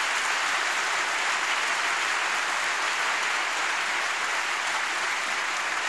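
Concert-hall audience applauding steadily as a song ends.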